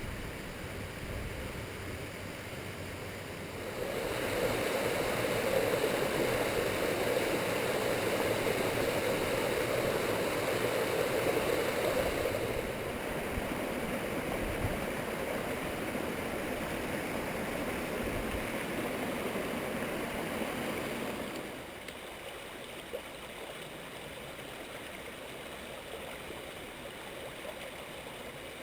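Small mountain stream running as a steady rush of water. It grows louder about four seconds in and falls back to a softer, even flow after about twenty seconds.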